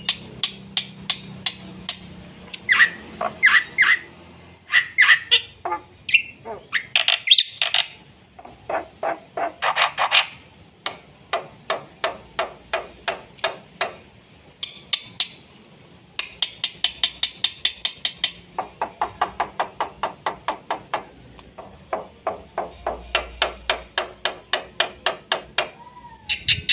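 Black-winged myna (jalak putih) singing a fast, full song: long runs of rapid dry clicking and chattering notes mixed with sharper whistled calls.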